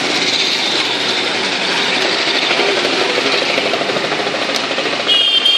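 Busy street traffic, with the engines of motorcycles, scooters and auto-rickshaws running close by. Near the end a short, high vehicle horn sounds.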